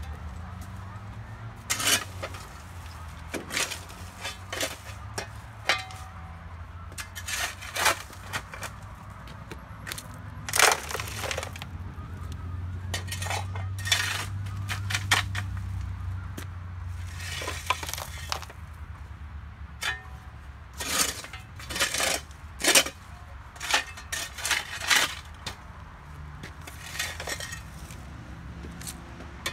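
A hand shovel scraping the ground and tossing dirt and gravel into the bed of a radio-controlled Western Star dump truck model: repeated sharp scrapes, clinks and rattles of stones landing, in irregular bunches. A low steady hum runs underneath.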